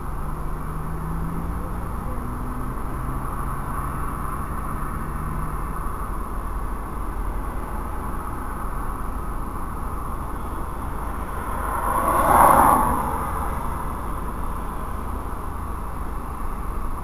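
Steady low rumble heard inside a stationary car, with a passing vehicle swelling and fading about twelve seconds in.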